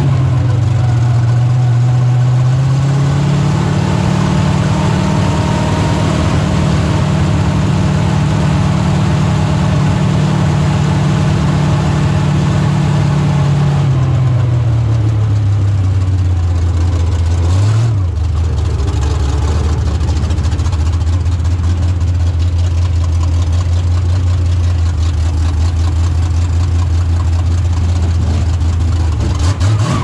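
Dirt-track race car's engine heard from inside the cockpit, running at low speed. The revs climb a couple of seconds in and hold, then drop back about halfway, with a short blip of throttle, and settle into a steady low run.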